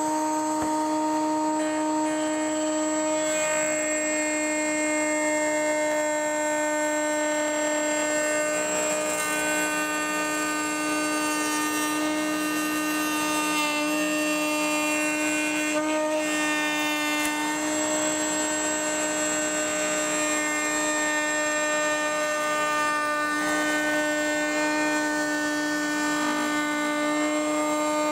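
Table-mounted router spinning a flush-trim bearing bit at speed, a steady high whine with cutting noise as the bit trims a curved wooden molding flush to its template.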